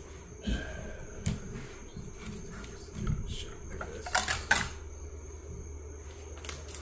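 Parts and hand tools being handled on a stripped outboard engine block: a few dull knocks and taps, then a quick cluster of sharp clicks about four seconds in as a plate is lifted off, over a steady low background hum.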